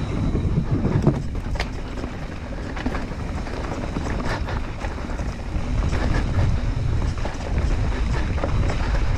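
Mountain bike rolling down a dirt trail, with wind buffeting the microphone and scattered clicks and rattles from the bike over the terrain.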